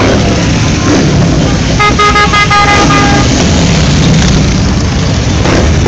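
Harley-Davidson V-twin motorcycles rumbling past at parade pace, with a horn tooting in a quick series of short blasts about two seconds in.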